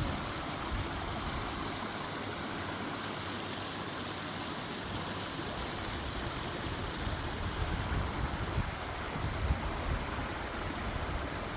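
Running water rushing steadily, as of a stream or small waterfall.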